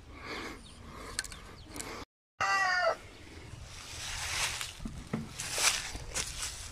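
A chicken gives a loud, short call that falls in pitch, just over two seconds in, with softer chicken sounds before it. Later come scattered rustling steps, likely footsteps in dry leaf litter.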